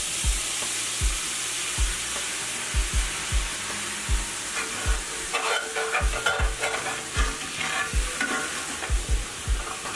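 Water poured into a hot cast iron skillet of pork drippings and cooked flour, hissing and sizzling hardest in the first couple of seconds, as the pan is deglazed. A metal spoon stirs and scrapes the bottom of the skillet, with repeated dull knocks and, from about halfway, clicky scraping strokes.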